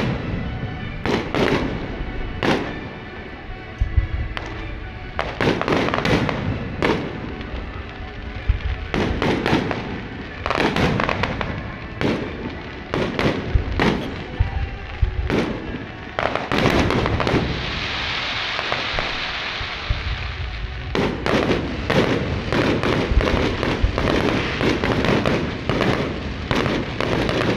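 Fireworks display: aerial shells bursting in quick succession, many sharp bangs with crackling between them. About two-thirds of the way through, a few seconds of dense hissing crackle takes over before the bangs resume.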